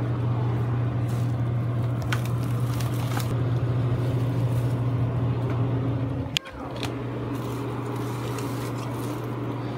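Steady low hum of a refrigerated drink cooler's motor running with the door open, with a few clinks and knocks as a tray is pushed onto a shelf. A sharp knock about six seconds in, after which the hum carries on a little quieter.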